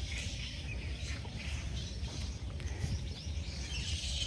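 Faint, scattered bird chirps over a steady low rumble, with a denser patch of chirping near the end.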